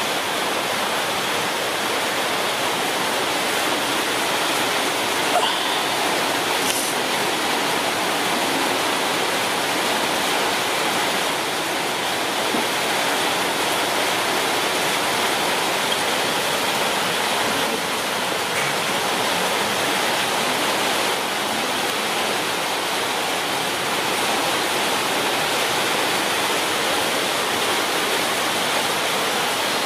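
A steady, even rushing hiss, with a brief click about five seconds in.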